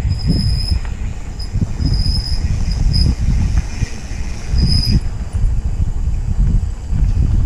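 Mountain bike rolling fast over a dirt trail with wind buffeting the microphone, while the bike's brakes squeal in about five short, high bursts during the first five seconds, then stop.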